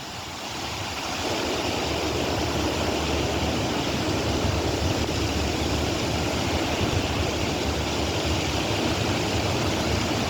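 Wind blowing across the microphone: a steady rushing noise that swells about a second in and then holds.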